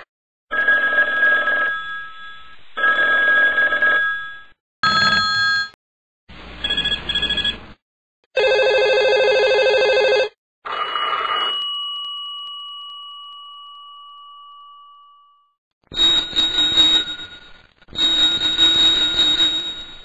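Vintage telephone rings played one after another: about eight separate ringing bursts of differing tone, each a second or two long with brief gaps between them. Near the middle, one ring ends in a single note that dies away over about four seconds.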